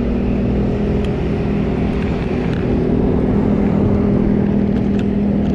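A loud, steady engine drone holding one pitch without revving or changing.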